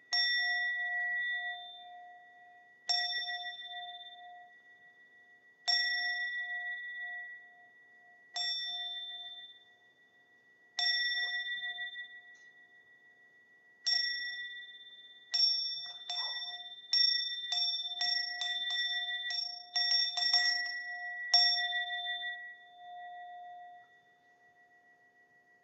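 Small bowl bell of a Zen service struck six times, slowly and evenly with each ring dying away, then struck faster and faster in a quickening roll that ends about 21 seconds in. This is the bell roll-down that signals the bows at the close of the service.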